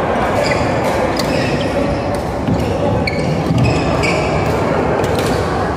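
Badminton play on an indoor court: rackets hitting a shuttlecock in sharp cracks at irregular intervals, with short high squeaks of court shoes on the floor, over a steady din of voices and play from nearby courts.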